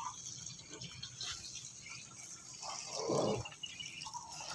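Water dripping and splashing among squash flowers and leaves in a metal basin as they are washed by hand, louder for a moment about three seconds in.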